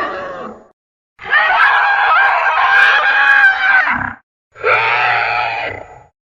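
Designed monster vocal sound effects for a three-headed dragon kaiju: the end of one screeching roar, then a long call of about three seconds, then a shorter one, each separated by a brief silence.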